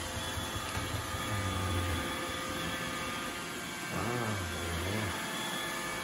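iRobot Roomba 960 robot vacuum running on a hardwood floor: a steady whir from its vacuum motor and brushes, with several thin steady whining tones over it.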